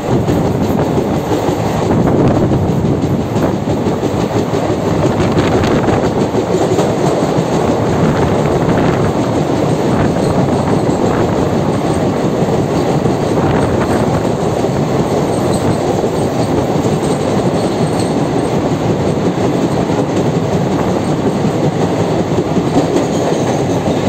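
Indian passenger train running at speed, heard from an open coach door: a loud, steady rumble of wheels on rails with scattered faint clicks.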